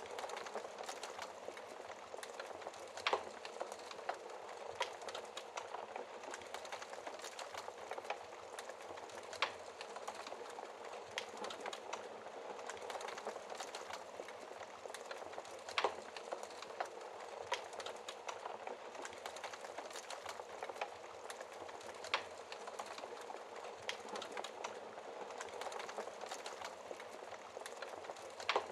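Wood fire crackling in a fireplace: a steady hiss of small crackles, with a louder pop about every six seconds.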